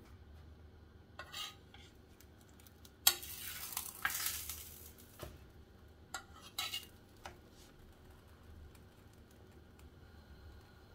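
A metal spoon scrapes and taps on a chapati in a hot, thick chapati pan as it spreads vegetable oil over the flatbread, and the oil sizzles. A sharp clink about three seconds in is followed by about two seconds of sizzling, with shorter scrapes and taps around it.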